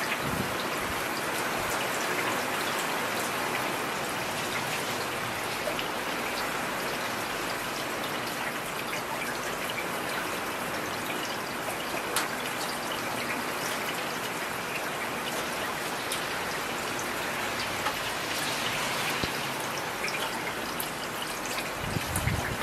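Heavy rain falling steadily: a dense, even hiss with scattered ticks of individual drops. A brief low rumble near the end.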